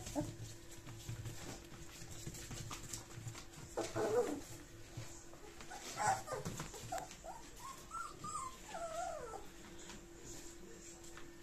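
Young puppies, about three weeks old, whimpering: short squeaks about four and six seconds in, then a longer wavering whine that rises and falls near the end. Faint scratches of small paws on newspaper come and go beneath.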